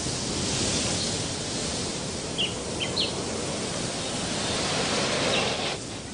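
Steady outdoor rushing ambience with a few short bird chirps in the middle and again near the end. The rushing drops away shortly before the end.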